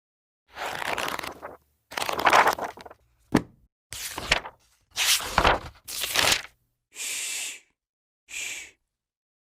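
A run of short, separate sound effects, about eight in nine seconds, each a noisy burst cut off into dead silence. About three seconds in there is one sharp click, and the two near the end are higher-pitched hisses.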